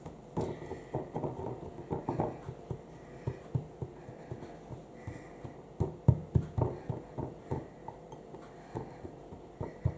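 A biscuit-crumb base being pressed down into a dish: many soft, irregular taps and knocks, several a second.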